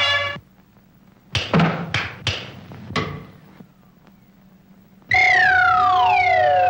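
Cartoon sound effects. As the orchestral music cuts off, there are a few sharp knocks with short pitched, cat-like cries between them. About five seconds in, a loud sliding note falls steadily in pitch over a held tone.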